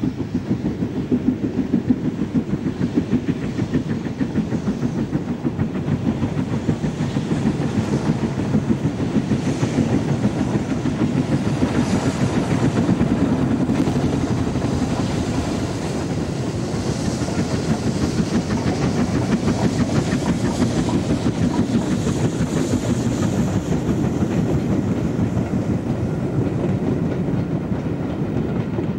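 Steam locomotive working hard at the head of a passenger train, its exhaust beating in a fast, steady rhythm.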